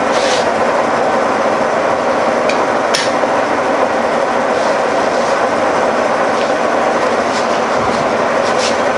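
Old horizontal milling machine running, its spindle driving a boring bar that bores out a hole in a lathe drive mount: a steady, dense mechanical running noise with a few light clicks.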